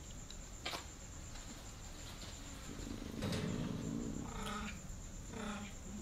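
Domestic cat growling low about halfway through, then giving two short yowls about a second apart.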